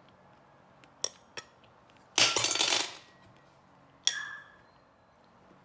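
Tableware handled at a table: two light clicks, a loud rustling rush lasting just under a second, then a sharp clink of a dish or cup that rings briefly as it dies away.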